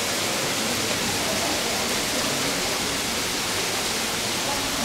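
Fountain jets splashing steadily into a pool, a constant rushing hiss.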